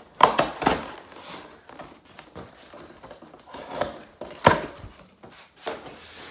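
Scissors slitting the packing tape along a cardboard box, a run of irregular scrapes and knocks on the cardboard with the sharpest about four and a half seconds in. Near the end the box flaps are pulled open.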